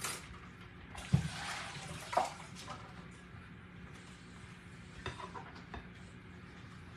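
A spatula stirring wet cornbread dressing in an Anchor Hocking glass mixing bowl: soft squishing and scraping, with a sharp knock about a second in and another a second later.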